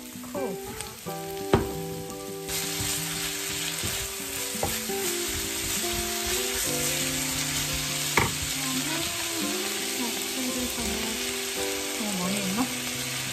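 Sliced cabbage frying and sizzling in hot chili oil in a pan while it is stir-fried with a wooden spoon; the sizzle gets much louder about two and a half seconds in. Two sharp knocks stand out, about a second and a half in and again near the middle.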